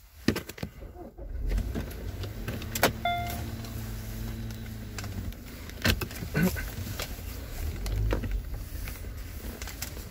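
Car running, heard from inside the cabin: a steady low rumble that sets in about a second and a half in, with a few clicks before it, a short beep about three seconds in, and scattered knocks.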